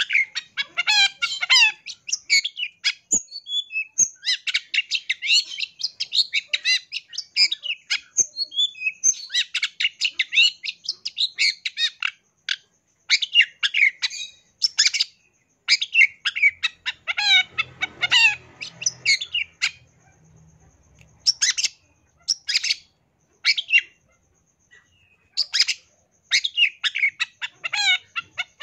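Long-tailed shrike (cendet) singing a fast, chattering song of rapid-fire phrases packed with mimicked notes, with short pauses between phrases in the second half.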